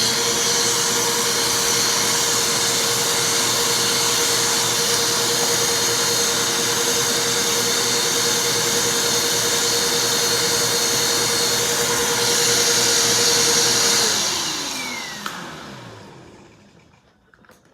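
Vacuum cleaner running steadily, then switched off about fourteen seconds in, its motor whine falling in pitch and fading as it spins down.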